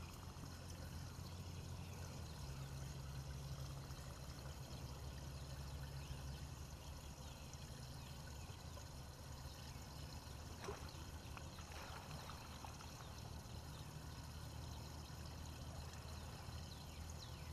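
Faint trickling and splashing water over a steady low hum, with a couple of faint ticks partway through.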